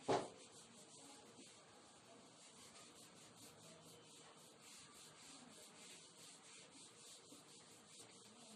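Whiteboard eraser rubbing faintly and steadily across a whiteboard, with one brief knock just after the start.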